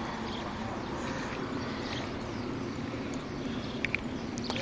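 Outdoor park ambience: a steady background hum with a faint distant murmur, and a few short faint clicks near the end.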